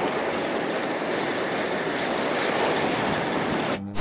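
Ocean surf washing and breaking, with wind on the microphone: a steady rushing noise that dips briefly near the end.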